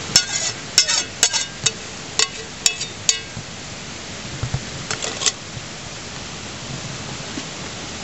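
A metal spoon clinking and scraping against a small aluminium saucepan as melted butter is scraped out of it: a quick run of sharp clinks in the first three seconds and a few more about five seconds in, over a steady background hiss.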